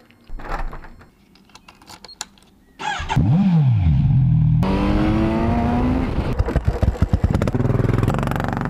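Keys jingling as they are lifted off a hook, then about three seconds in a Kawasaki Z900RS's inline-four engine starts and revs, its exhaust note rising in pitch. A rapid pulsing stretch follows before a steadier running note near the end.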